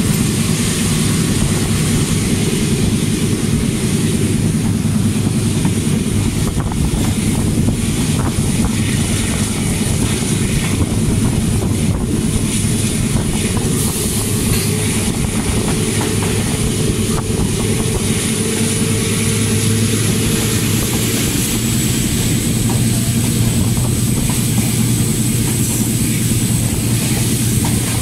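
ZCU diesel-electric locomotive running steadily as the train moves along the line, heard close to the locomotive: a continuous engine drone mixed with the noise of the train in motion and a thin high whine.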